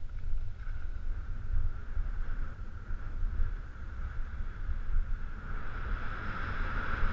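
Wind buffeting the microphone of a head-mounted camera while skiing downhill, with the hiss of skis running over packed, groomed snow. The hiss grows louder near the end.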